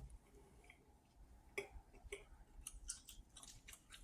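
Near silence with a few faint, scattered clicks and ticks, irregularly spaced, most of them in the second half.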